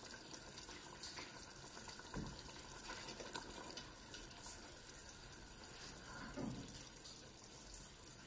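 Tongs moving chicken pieces in a pot of simmering sauce: soft sloshes and splashes about two seconds in and again around six and a half seconds, over the faint steady bubbling of the sauce.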